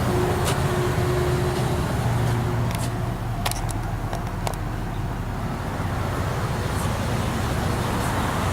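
2007 Chevrolet Avalanche 1500's V8 engine running at a steady idle, a low even hum with a few light clicks.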